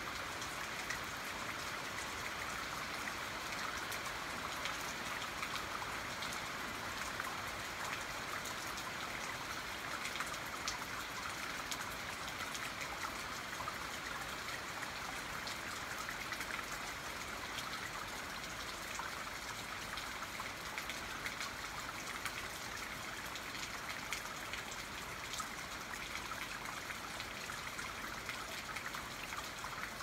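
Steady rain falling, with scattered individual drops heard as sharp ticks.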